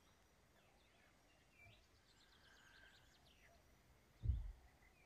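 Near silence, with faint high chirps scattered throughout and a single soft low thump about four seconds in.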